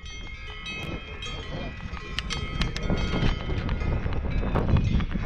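Mountain bike rolling down a bumpy grass trail: a steady low rumble of tyres and wind with frequent sharp rattles and clicks from the bike, under a faint high whine. It grows louder as the bike picks up speed.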